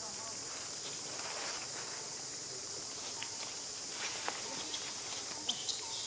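Steady, high-pitched chorus of jungle insects, with scattered light clicks and rustles from young macaques climbing in the branches, a few sharper ones in the second half.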